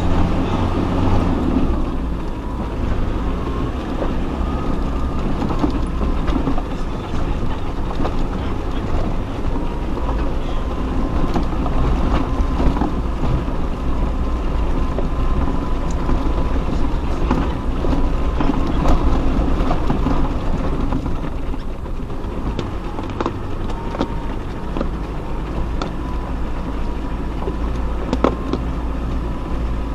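Off-road 4x4 crawling over a rough, rocky track: the engine runs low and steady under a constant rumble, with scattered knocks and rattles from stones and the bodywork.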